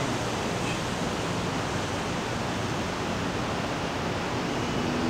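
Steady, even hiss of background noise with no distinct clicks or knocks.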